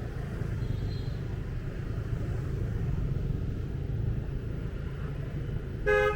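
Steady low rumble of a motorbike running along a street, with a short horn beep near the end.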